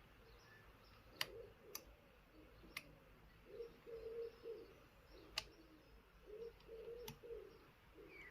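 Faint picking of a Chubb 3u114e five-lever lock: about five sharp, scattered clicks as the pick works the levers, which have yet to set. Behind them a bird coos softly and repeatedly.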